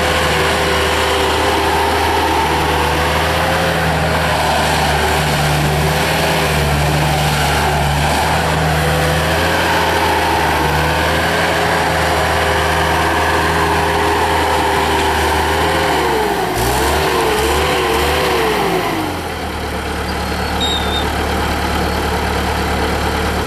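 Bobcat 863G skid steer's Deutz turbo diesel running at high throttle, with a whine that wavers in pitch. About three quarters of the way in the pitch wobbles and falls and the engine settles to a lower, quieter idle.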